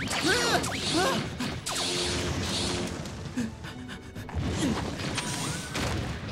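Cartoon action background music with sound effects, including a short steady electronic tone with a rising glide about five seconds in.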